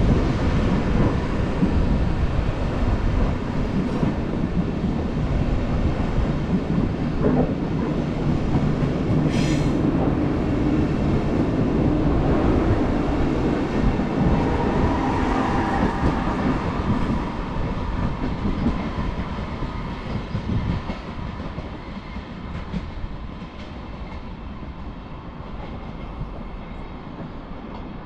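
A train running on the tracks close by, its wheels clattering over the rails, growing fainter over the last third as it moves off.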